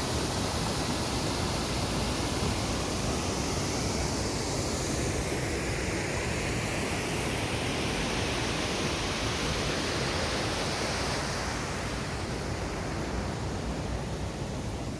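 Waterfall: a steady, dense rush of falling water, growing a little softer and duller near the end.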